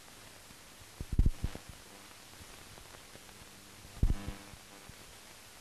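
Hiss of an old optical film soundtrack, broken twice by short clusters of low thumps, about a second in and again about four seconds in.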